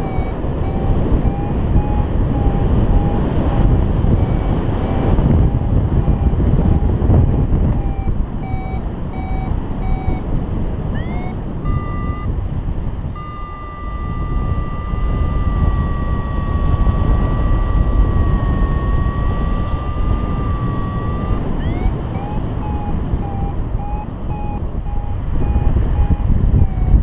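Paragliding variometer beeping in short rhythmic pulses, the climb tone that signals rising in lift, with a quick rising chirp twice. In the middle, for about eight seconds, it holds one long steady tone that wavers slightly. Loud wind rushes over the camera's microphone throughout.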